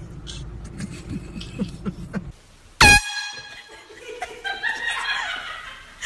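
One short, very loud air-horn blast about three seconds in, right after a low steady rumble cuts off. Indistinct voices follow.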